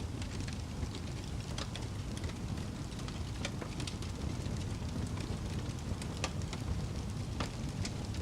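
Fire crackling: a steady low rumble of flame with irregular sharp pops and snaps scattered through it.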